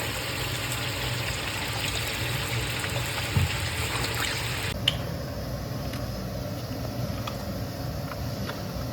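Steady rush of moving water, with a short click about five seconds in where the sound changes abruptly.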